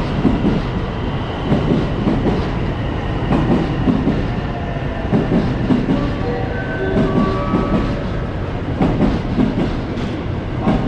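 Electric train moving along the platform, its wheels clattering over rail joints in a repeated knocking rhythm, with faint whining tones partway through.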